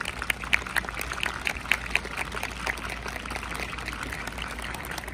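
A small audience clapping, individual claps distinct, thinning out and fading after about two seconds.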